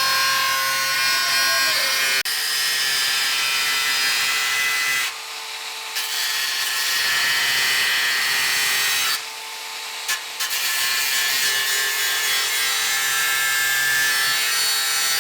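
Power tool cutting the new sheet-metal sill repair section, a loud steady hissing cut that stops twice briefly partway through.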